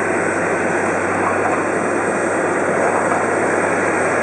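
Steady rumble of jet airliner engines running.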